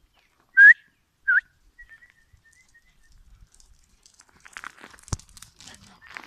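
Two short, loud human whistles, the first rising and the second dipping then rising: a recall whistle to the dogs. From about four seconds in come faint rustles and thuds as large dogs run up over gravel and grass.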